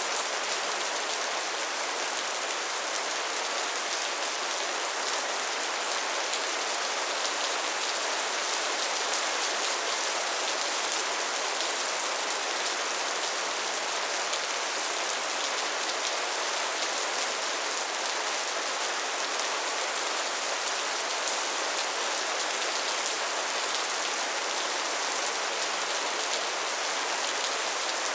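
Soft rain falling steadily, an even hiss with fine pattering drops.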